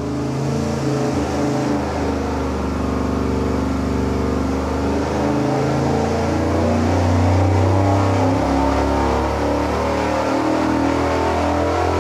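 Big-block Chevrolet 454 V8 running at wide-open throttle on an engine dyno, with the revs climbing through a pull.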